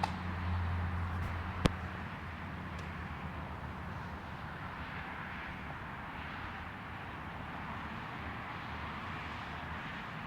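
Steady outdoor background noise, with a low hum that fades out over the first couple of seconds and one sharp click a little under two seconds in.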